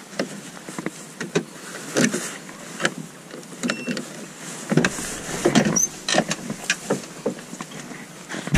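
Footsteps crunching and rustling through dry brush and grass at an uneven walking pace, with a heavier bump at the very end.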